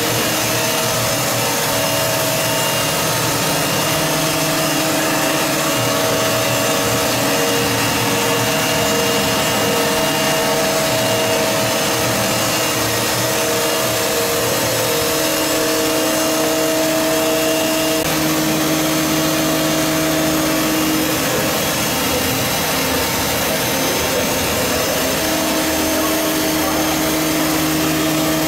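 Fadal VMC 6030 vertical machining center running: a steady mechanical whir with hum tones that drop out and come back every few seconds.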